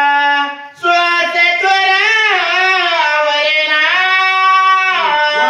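A man singing a line of a Marathi devotional verse in long held notes that glide up and down in pitch, with one short break for breath about half a second in.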